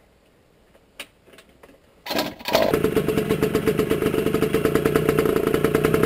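Suzuki JR80's small two-stroke single-cylinder engine on a cold start: a few faint clicks, then it fires about two seconds in and settles at once into a steady run with a fast, even popping beat.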